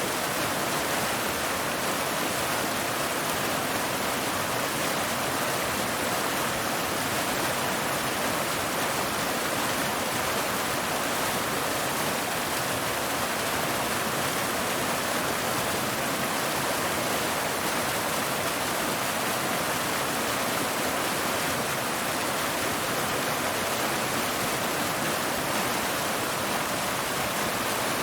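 Waterfall: a steady rush of water falling over rocks, even and unchanging.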